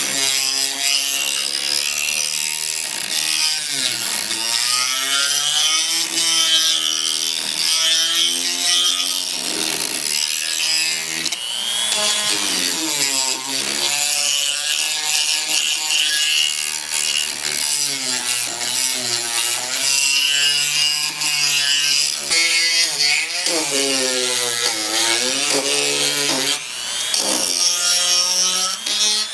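Power tool spinning a sanding drum against wood, a gritty rasping over the motor's hum; the motor's pitch sags and recovers again and again as the drum is pressed in and eased off.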